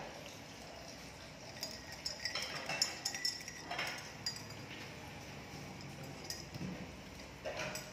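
A long metal spoon clinking against a glass mug as a drink is stirred: a run of quick, irregular clinks for about two seconds, then a few more near the end.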